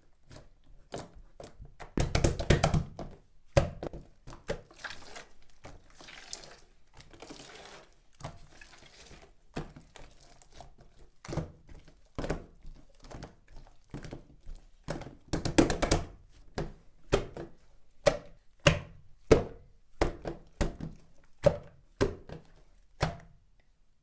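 Slime being squeezed and poked by hand: soft squishing broken by sharp clicks and pops as air pockets burst. Toward the end it settles into single pops about every half second to a second.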